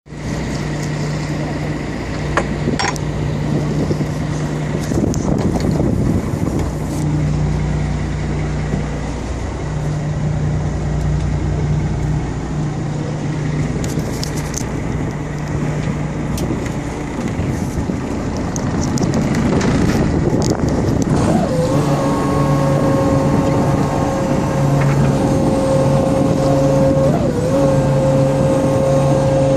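Fishing boat's engine running steadily under wind and sea-splash noise. About two-thirds of the way through, a steady higher whine joins in.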